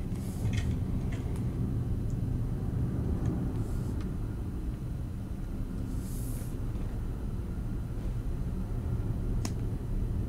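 Steady low rumble of background noise, with a single sharp click near the end.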